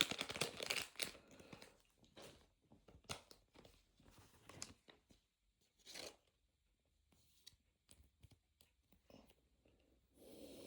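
Thin plastic packaging being torn open and crinkled, loudest in the first second, followed by faint, scattered rustles and light clicks of cards and sleeves being handled.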